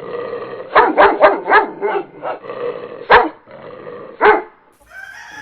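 Dog barking: a quick run of barks about a second in, then two single barks a second or so apart.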